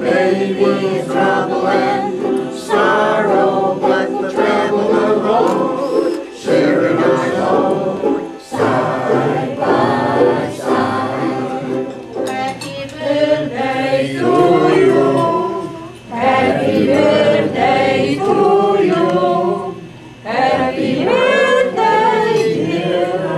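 A group of amateur voices singing a song together, accompanied by strummed ukuleles, with brief breaks between phrases.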